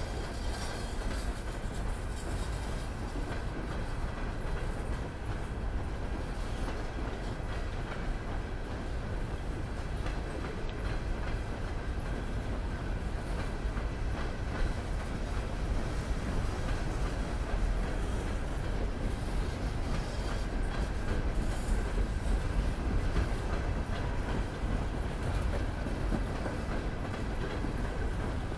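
Norfolk Southern freight train cars rolling past on the track, with a steady rolling noise of steel wheels on rail that holds at an even level throughout.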